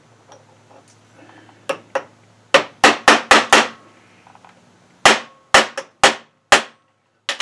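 Small hammer tapping a small steel thread button into its hole in a lathe chuck backplate: two light taps, then a quick run of five sharp strikes, a pause, four more, and a last one near the end. The button is a tight fit and doesn't go fully home under the hammer.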